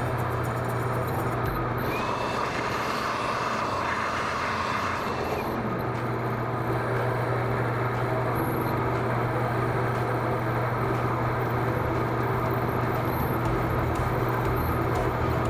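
Bridgeport vertical mill running steadily, its solid carbide end mill cutting a slot through a cast iron angle plate under hand-cranked table feed. From about two to five seconds in, a brighter hiss with a thin whistle joins in.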